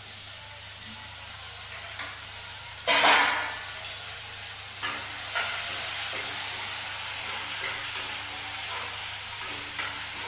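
Potato pieces frying in hot oil in a kadai, sizzling steadily as a spatula stirs them, with a louder burst of sizzling about three seconds in. The spatula clinks against the pan now and then.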